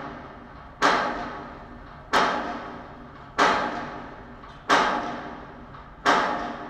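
Title-animation sound effects: a series of sharp impact hits, about one every 1.3 seconds, each fading away over about a second.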